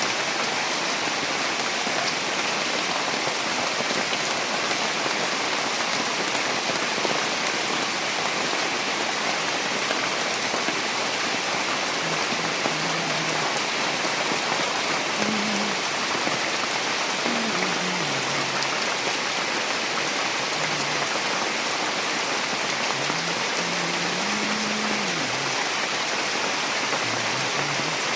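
Steady rain falling and pattering on surfaces.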